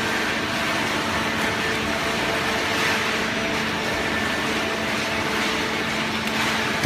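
Open-ended shredded paper baler running, a steady machine hum with a few constant tones over an even rush of noise.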